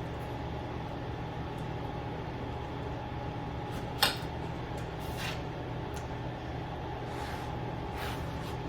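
Steady low mechanical hum of a running motor or appliance, with one sharp click about four seconds in and a few faint clicks after.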